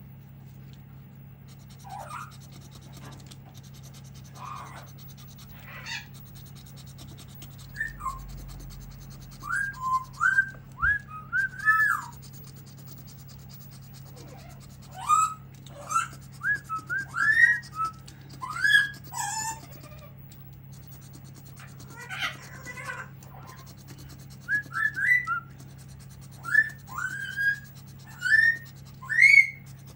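Pet parrot whistling: short, loud whistled chirps, some rising and some falling in pitch, coming in quick runs of several notes with pauses between.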